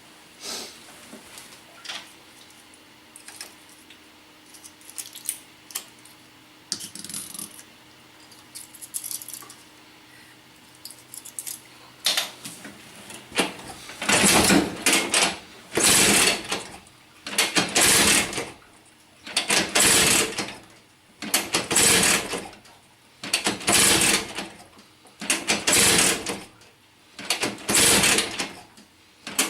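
Two-stroke engine of a Vyatka Elektron scooter being cranked over again and again without starting. There is light clicking and rattling for the first dozen seconds. Then come loud, noisy cranking strokes, each about a second long, roughly one every two seconds.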